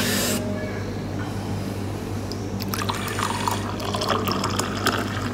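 Coffee poured from a coffee maker's carafe into a cup, splashing steadily as the cup fills from about three seconds in. A brief noise sounds right at the start, over a steady low hum.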